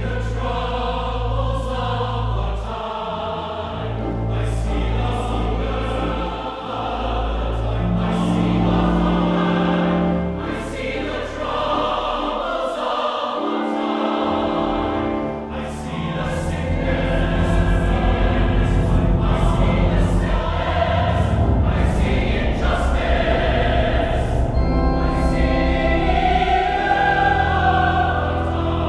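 Mixed choir singing with pipe organ accompaniment; the organ holds long low pedal notes beneath the voices.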